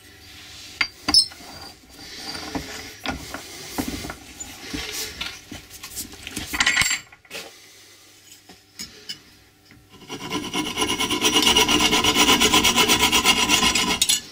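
Clanks and knocks of a steel hammer head being handled and clamped in a bench vise. About ten seconds in, a hacksaw starts cutting into the hammer head with a loud, steady rasp, on a blade worn enough that he thinks he needs a new one.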